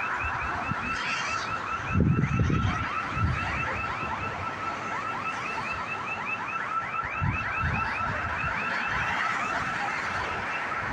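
Building security alarm going off: a rapid train of short falling chirps, several a second, over a steady high tone. A brief low rumble rises under it about two seconds in.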